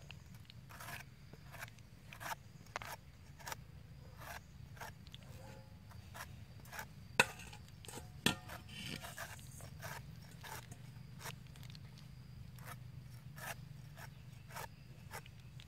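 A steel cleaver shaving the skin and eyes off a pineapple in short scraping strokes, roughly one a second. Two strokes about seven and eight seconds in are sharper and louder.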